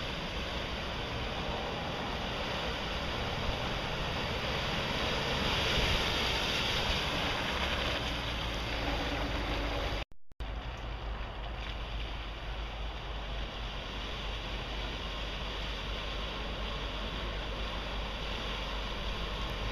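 Land Rover Discovery wading through a flooded, muddy trail: engine running and water washing around the wheels, with wind noise on the microphone. The noise swells about a third of the way in, cuts out for a moment about halfway through, then goes on steadily as a second Discovery wades through.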